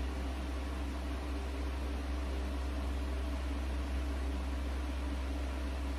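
Steady background hum with an even hiss, unchanging throughout, with no distinct clicks or other events.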